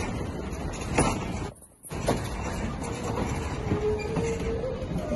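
Wooden passenger coaches of a steam excursion train rolling past on the rails as the train pulls out of the station, wheels and running gear giving irregular knocks over the steady rolling noise. The sound cuts out for a moment under two seconds in, and a faint steady whine is heard a little after three seconds.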